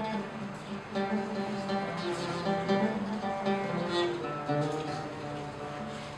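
A plucked string instrument playing a melodic instrumental passage of single notes.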